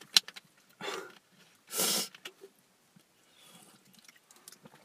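A man crying between words: short mouth clicks, then unvoiced, shaky breaths and sniffles, the loudest about two seconds in.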